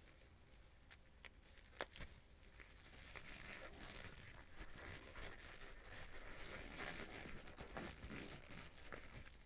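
Close-up hand-handling sounds: rustling and crinkling, with a sharp click about two seconds in, then steadier, louder rustling from about three seconds in.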